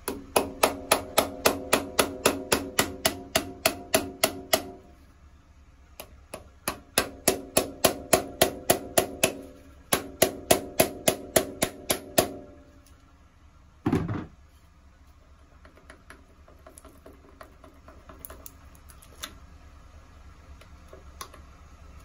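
Ratchet wrench with a 5mm hex bit clicking in three quick runs of sharp metallic clicks, about four a second, while undoing the fuel shut-off solenoid's bolts on a Kubota diesel's injection pump. A single dull clunk follows about 14 seconds in.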